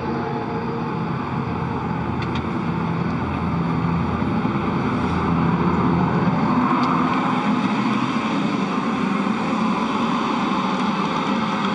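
Steady rushing drone of the space station's cabin ventilation fans and equipment, swelling slightly midway, with a couple of faint clicks.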